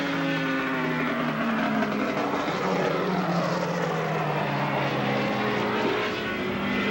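Racing saloon-car engines running on the circuit. The pitch of the engine note falls in the first couple of seconds, then climbs again about five seconds in as the cars change speed.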